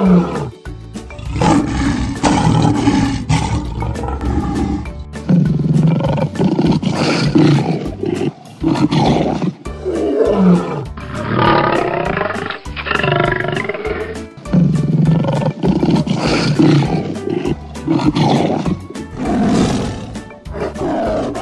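Lion roaring: a run of repeated roars, each a couple of seconds long, with short breaks between them.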